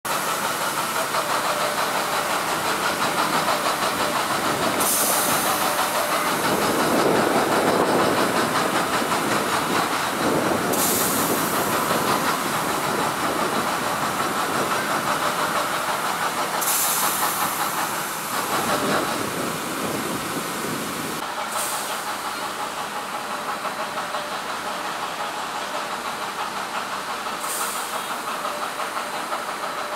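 Fire truck engines running their pumps, with a steady hiss of high-pressure water streams from the hoses and ladder nozzle. Brief bursts of sharper hiss come every several seconds.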